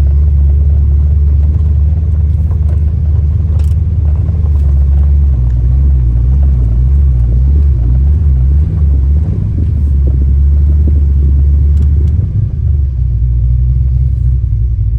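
Fox-body Ford Mustang engine running at idle, a steady low rumble that wavers unevenly for a few seconds in the middle and dips briefly near the end.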